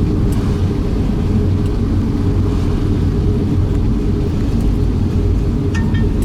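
Strong typhoon wind buffeting the microphone: a loud, steady low rumble.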